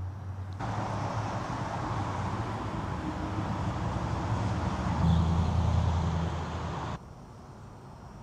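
Street traffic: a car's engine and tyres passing on the road, starting suddenly under a second in, loudest about five seconds in, and cutting off abruptly about seven seconds in.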